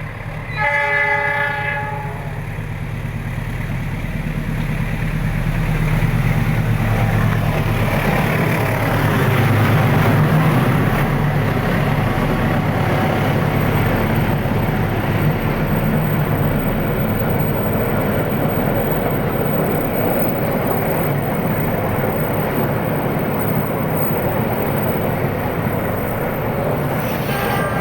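Passenger train horn sounding briefly, the Indonesian railways' semboyan 35 warning that the train is close. The diesel locomotive's engine and the carriages' wheels then rumble steadily past on the rails, with a short horn again near the end.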